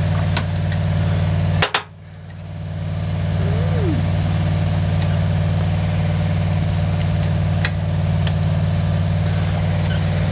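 An engine idling with a steady low hum. About two seconds in there is a click, and the sound drops away suddenly before building back up over a second or so.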